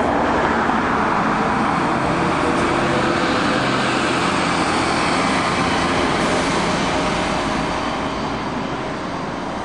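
A heavy vehicle running close by with a steady engine and road noise, fading a little near the end.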